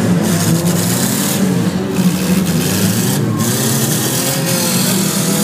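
Several demolition derby cars' engines running and revving at once, their pitches rising and falling over one another, under a dense noisy roar.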